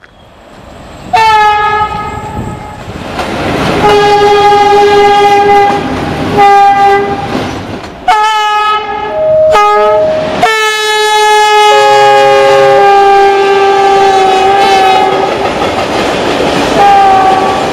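Diesel locomotive horn sounding in a series of blasts, short ones at first and then one held for about five seconds, with a second, different tone joining in twice. Underneath, a freight train's wheels roll and clatter over the rails.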